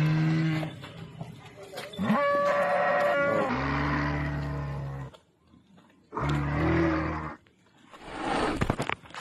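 Animatronic triceratops's bellowing calls: three low, drawn-out moo-like bellows of about a second or more each, with a higher-pitched call between the first two. A short rushing noise follows near the end.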